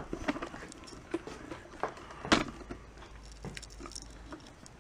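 Handling noises as a flat TV panel is turned over and handled: scattered light clicks, taps and rubs, with one louder knock about two and a half seconds in.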